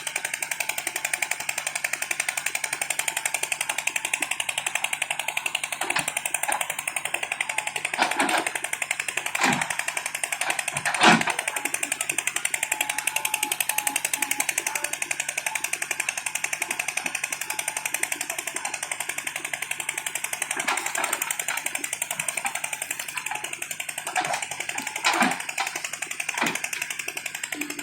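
A diesel engine running steadily with a fast, even pulse. A few sharp knocks or clanks are heard near the middle and again near the end.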